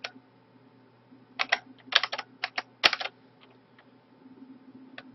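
Computer keyboard keystrokes typing a spreadsheet formula: a single click at the start, then several quick clusters of clicks between about one and a half and three seconds in, and a few faint taps later. A faint steady low hum runs underneath.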